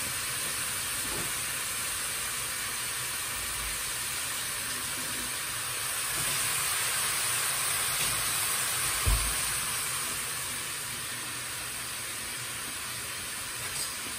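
Cubed pork sizzling steadily in sesame oil in a stainless steel pan, salted and giving off its juices. One light knock about nine seconds in.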